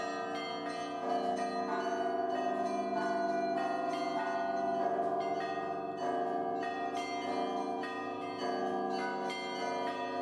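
Church bells ringing: many bells struck in quick succession, their tones overlapping and ringing on.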